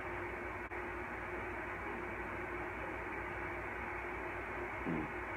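Steady background hiss with a thin steady tone and a low hum: the recording's noise floor, with no distinct event. A short faint sound occurs just before the end.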